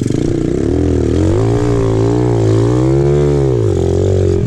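Apollo RFZ 125cc pit bike's single-cylinder four-stroke engine running under throttle while riding, its note rising and falling several times. It climbs to a peak about three seconds in and drops off shortly after.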